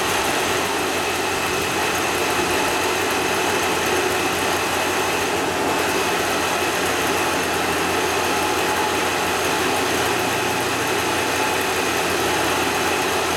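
Freshly rebuilt Vespa 400 two-stroke twin-cylinder engine running steadily on its first run-in after sitting for many years.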